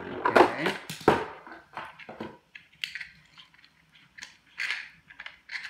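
Beyblade spinning tops clattering against each other and the hard plastic stadium, with a few sharp knocks in the first second or so; after that only scattered light plastic clicks and taps.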